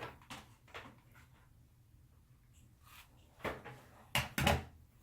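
Light clicks and knocks of a flat iron being handled: a few small ones near the start, then a louder cluster of three close together near the end.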